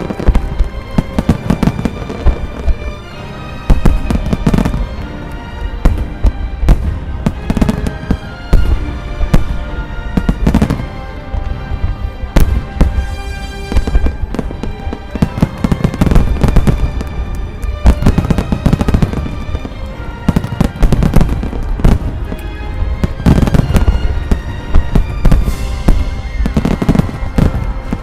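A rapid-fire starmine fireworks display: shells bursting one after another in dense clusters of booms and crackles, with music playing along with the show.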